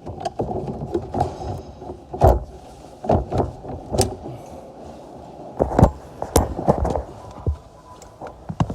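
Hard plastic interior trim being snapped and knocked into place behind a car's glove box: a run of sharp clicks and knocks with rustling handling between, the loudest about two, four and six seconds in.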